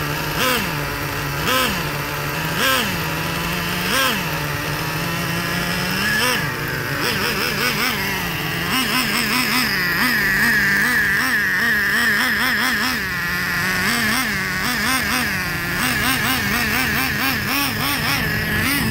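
Small nitro glow engine of an RC monster truck, still being broken in, revving in short throttle blips about once a second, then in quick repeated blips from about nine seconds in as the truck is driven.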